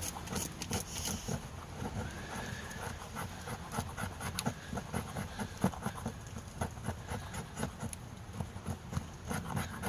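A multitool's file scraping a stick of fatwood in many short, uneven strokes, with scratchy clicks and light knocks.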